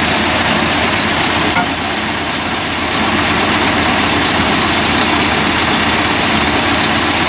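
Heavy vehicle engine running loudly and steadily at close range, with a thin steady high whine above it.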